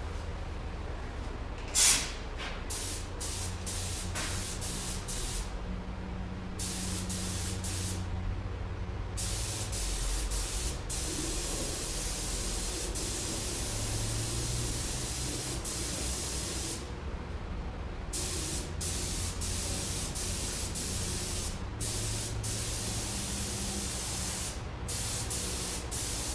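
Compressed-air paint spray gun spraying the first, tack coat of paint: a hiss that starts and stops in repeated passes as the trigger is pulled and released, over a steady low hum. A sharp click about two seconds in.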